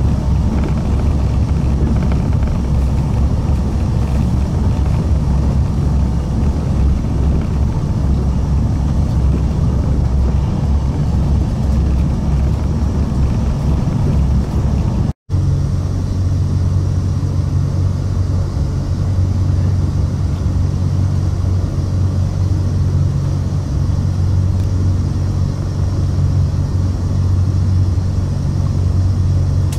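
Cabin noise of an ETR470 electric tilting train running at speed: a steady rumble of wheels on track. It drops out for an instant about halfway through, then continues with a steadier low hum.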